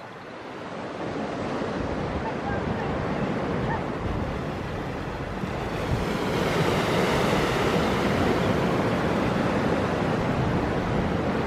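Small sea waves breaking and washing up a sandy shore: a steady surf hiss that swells louder about six seconds in. Wind rumbles on the microphone underneath.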